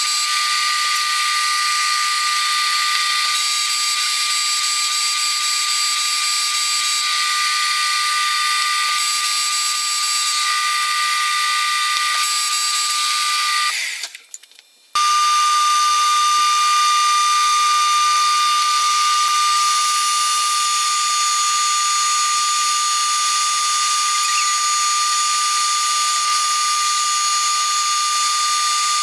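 Metal lathe boring an aluminium workpiece: a steady high-pitched machine whine with cutting noise that comes and goes. About halfway through the sound drops out for about a second, then resumes with the same whine.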